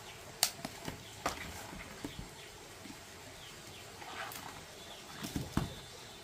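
A few scattered light knocks and clicks, with faint short high chirps in the middle.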